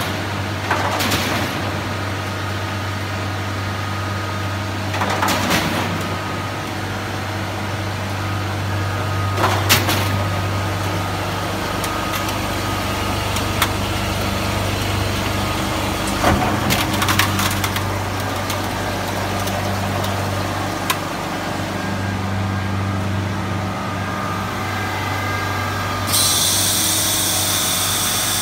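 Industrial cube ice machine running with a steady low hum, broken by a few short knocks and clatters. A steady hiss starts suddenly near the end.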